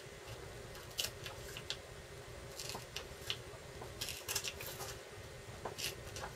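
A sheet of paper being gently peeled apart along a crease that has been folded back and forth until thin, giving soft, intermittent tearing crackles in small clusters.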